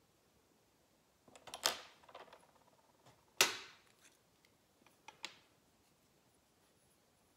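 Small art tools being handled off-camera as a paintbrush is put down and a dip pen picked up. There is a quick cluster of light clicks about a second and a half in, one sharp tap with a short tail near the middle, and two lighter clicks a little later.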